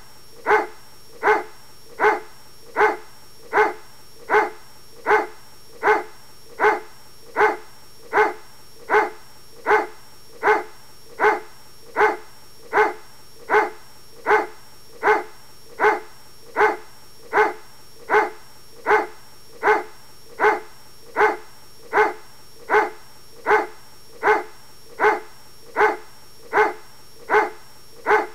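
Dog barking in a steady, even rhythm, about four barks every three seconds, each bark alike: a repeated bark sound effect.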